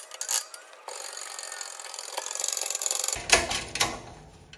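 A shop press pressing a bearing into a Yamaha jet pump's aluminium housing. Metal parts click as the bearing and driver are set, a hiss builds over about two seconds, and a few sharp metallic knocks follow about three seconds in.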